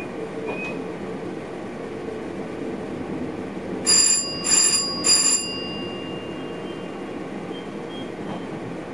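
Steady running noise of a train heard from inside the driver's cab. About four seconds in, three short, high-pitched bell-like rings come roughly half a second apart, and their tone lingers briefly after the last one.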